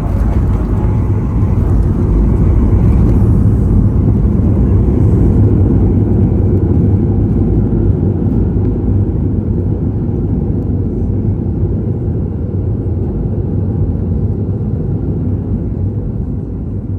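Boeing 737 jet engine noise heard inside the passenger cabin: a loud, steady low rumble that swells over the first couple of seconds and then slowly eases off.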